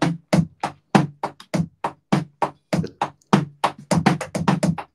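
Drum kit struck in a quick run of single hits, about five or six a second, each with a short low ring: the drums being tapped as a sound check.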